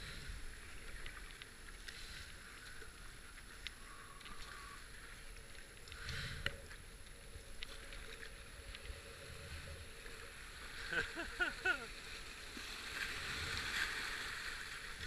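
Whitewater rushing around a kayak running rapids, with paddle strokes splashing. About eleven seconds in comes a short run of brief high-pitched cries.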